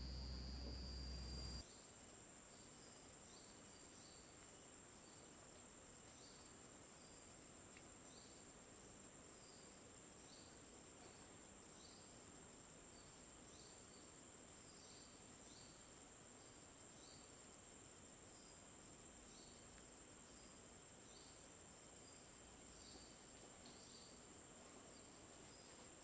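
Faint rainforest insects: a steady high-pitched drone with short chirps repeating roughly once a second. A low rumble cuts off abruptly about a second and a half in.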